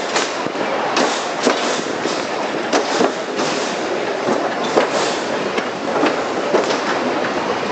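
Cable-hauled car of the Katoomba Scenic Railway rolling steeply downhill: a steady rumble of the wheels on the rails, with irregular sharp clacks coming roughly once or twice a second.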